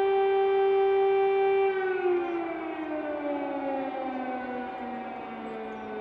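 Civil-defence air raid siren holding one steady wailing tone, then, a little under two seconds in, winding down in a long slow falling pitch as it dies away.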